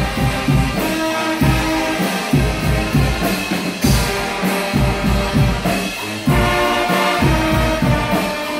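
Guggenmusik brass band playing: trumpets and trombones hold loud chords over a steady beat of bass drum and drum kit.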